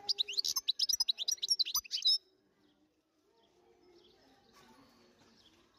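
European goldfinch singing a fast twittering burst of high, sweeping notes for about two seconds, which then stops abruptly, leaving only faint background noise.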